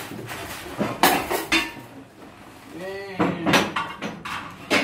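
Dishes and kitchenware clinking and knocking as they are handled and wrapped for packing, with a few sharp strikes about a second in and again past three seconds.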